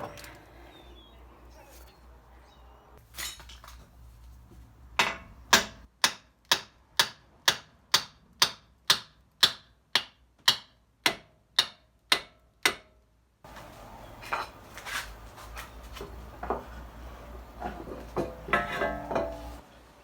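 Hammer blows on steel, about fifteen evenly spaced strikes at roughly two a second, knocking the outer end of a car's front drive axle loose from the wheel hub. After that, irregular metallic clinks and clatter of tools and parts.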